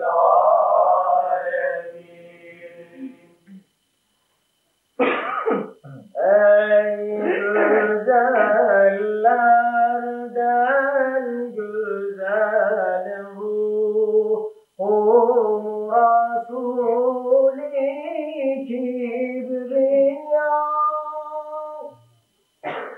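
A solo male voice chanting a mevlid unaccompanied, in long, slow melismatic phrases. One phrase dies away near the start, and after a short silence a throat clearing or cough comes just before the chanting resumes.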